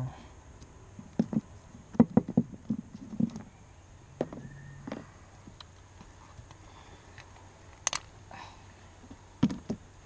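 Irregular small clicks and light knocks of a Kryptonite Evolution Series 4 padlock being handled and taken apart with an Allen key, metal parts tapping against each other, thickest a couple of seconds in and again near the end.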